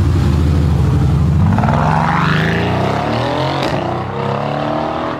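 Mercedes-AMG GT's twin-turbo V8 accelerating hard from low revs. The engine note climbs steeply about a second and a half in, breaks with a short sharp crack at an upshift about three and a half seconds in, then climbs again.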